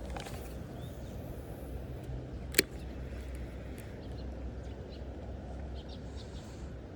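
Outdoor ambience: a steady low rumble with faint bird chirps, and a single sharp click about two and a half seconds in.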